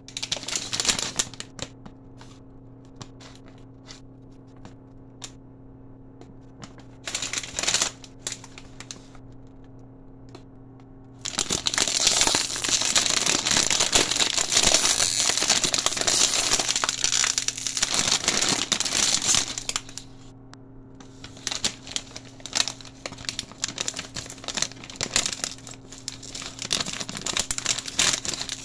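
Plastic potato chip bag crinkling as hands handle it and pull it open: short crackly bursts at first, then a long stretch of loud continuous crinkling and tearing through the middle, then scattered crinkles.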